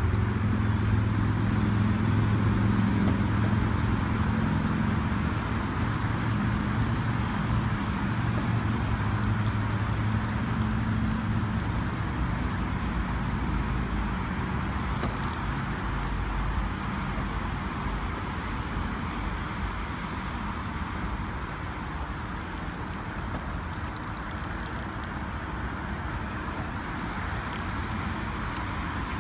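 Steady road traffic noise, with a low engine rumble that is loudest at first and fades away over the first half.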